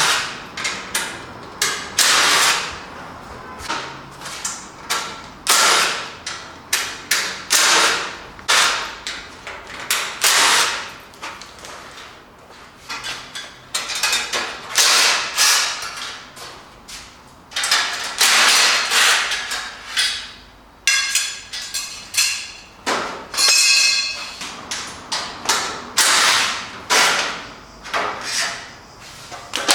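Irregular knocks, bangs and creaks of a new motorcycle's shipping crate being opened and taken apart with hand tools. One knock, about two-thirds of the way through, rings briefly.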